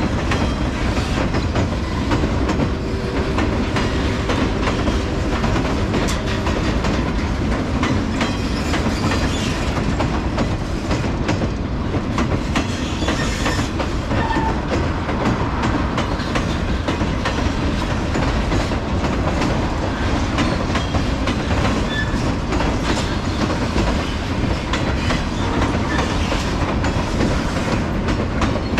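Empty log flatcars of a Portland and Western freight train rolling over a wooden trestle: a steady rumble with wheels clicking over the rail joints. A faint steady whine runs through about the first six seconds.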